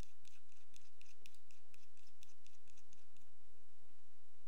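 Laser zeroing adjuster on a ZenitCo Klesch-1 being turned with its cover, giving a quick run of very clear detent clicks, about four or five a second, that stops about three seconds in.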